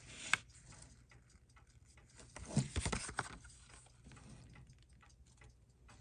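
Stiff paper card of a folded guarantee booklet rustling and crinkling as it is handled and opened, with a sharp click just after the start and a louder rustle of about a second in the middle, among light scattered ticks.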